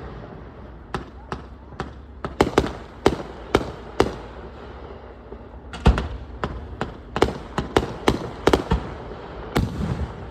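Fireworks going off: a string of sharp bangs at irregular spacing, some in quick clusters, with a short lull about halfway through.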